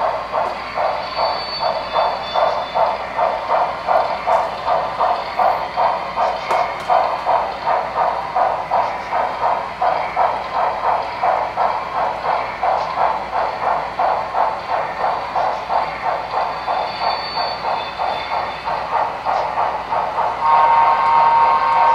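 Digital sound from a Broadway Limited HO-scale Texas & Pacific steam locomotive model, playing steady rhythmic exhaust chuffs, about three a second, as it pulls its train. Its whistle starts to blow near the end.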